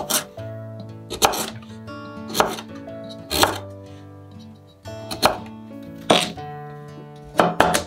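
Kitchen knife cutting through kabocha squash and hitting a wooden cutting board: about eight sharp chops at an uneven pace, roughly one a second, with a quick pair near the end.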